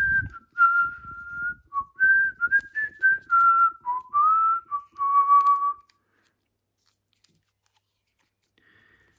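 A man whistling a tune in short phrases that stops about six seconds in, with the faint crackle of electrical tape being pulled and wrapped around a battery holder under it.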